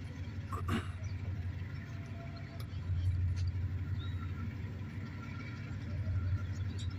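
Low, steady vehicle rumble that swells about three seconds in and again near the end, with one short knock less than a second in.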